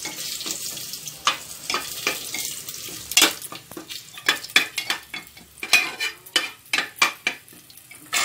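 Whole spices sizzling lightly in hot oil in a pressure cooker, with a spatula scraping and clicking against the bottom of the pot in irregular strokes as they are stirred.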